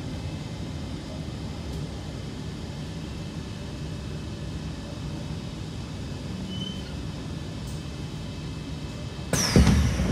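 Steady rumble and hum inside the carriage of a Kawasaki C151 MRT train. About nine seconds in, a sudden loud rush starts with a whine that falls in pitch.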